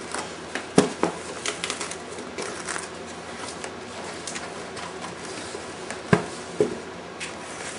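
Cardboard shipping box being opened by hand: flaps pulled back with scattered scrapes and crackles, and a sharp knock just under a second in and another about six seconds in.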